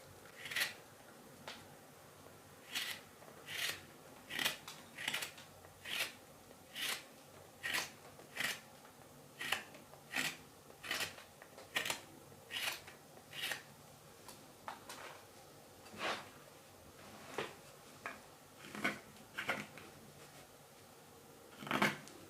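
Large hook knife scooping out the bowl of a green wild cherry spoon: a run of short, crisp cutting strokes, about one every three-quarters of a second, with a couple of brief pauses.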